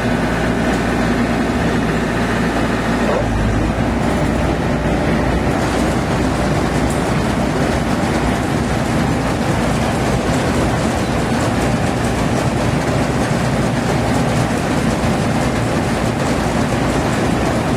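Yanmar AW70V rice combine harvester running steadily, its diesel engine and machinery making a loud, continuous mechanical noise whose tone shifts about three seconds in.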